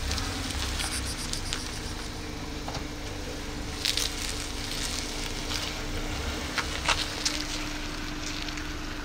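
Dry grass and leaves rustling and crackling as the cat moves, with a few sharper crackles about four seconds in and again around seven seconds, over a faint steady hum.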